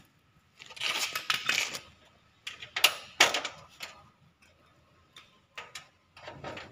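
Thin galvanized sheet-metal studs being shifted against each other into position: a stretch of metal scraping, then several sharp metallic clanks and clicks.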